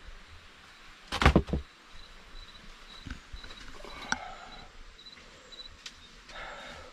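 A burst of knocks and scuffs about a second in, then an insect chirping in short high notes a few times a second, with a single sharp click midway and soft scuffing near the end.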